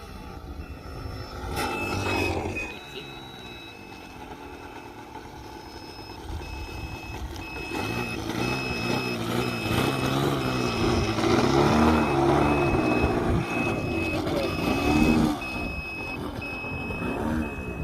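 The glow (nitro) engine of a radio-controlled model plane in flight, rising and falling in pitch and loudness as it passes, loudest around the middle. Over it a high electronic beep repeats about twice a second through most of the stretch.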